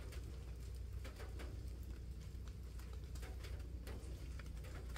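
Faint, irregular ticks of water drops pattering on leaves after rain, over a steady low hum.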